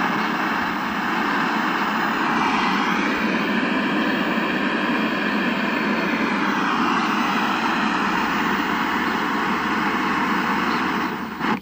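Steady hiss of static from the speaker of a 1976 RCA XL100 portable colour TV coming on, with faint wavering tones inside it. It starts suddenly and breaks off for a moment near the end.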